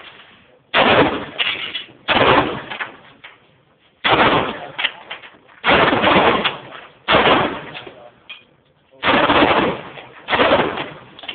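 Glock 32 compact pistol firing .357 SIG rounds: seven shots spaced about one and a half seconds apart, each a sudden loud crack that trails off over about a second.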